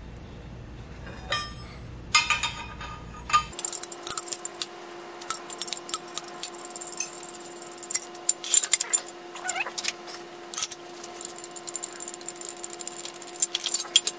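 Steel tools and lathe spindle parts clinking and tapping against each other, a few of the strikes ringing briefly, in an irregular run of light metallic clicks. A faint steady hum comes in about three and a half seconds in.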